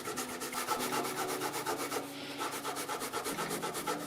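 Abrasive fret eraser rubbed quickly back and forth over a guitar's metal frets to polish them: a fast, even scratching, about eight to ten strokes a second.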